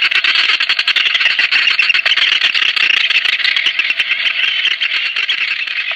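A dense, steady chorus of brown noddies calling, many overlapping croaking calls at once.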